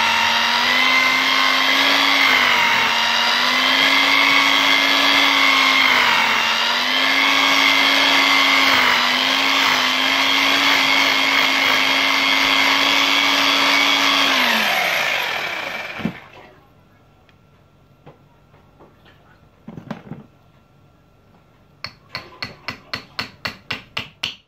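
Electric hand drill running under load as it bores a hole into the wall, its pitch dipping briefly a few times as the bit bites, then winding down and stopping about 15 seconds in. After a pause and a single thump, rapid tapping of about four knocks a second starts near the end.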